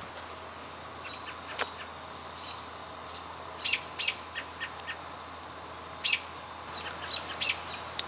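Birds chirping in short, sharp calls, a dozen or so scattered through, loudest about four and six seconds in, over a steady low hum from the Kenmore 5,200 BTU window air conditioner running.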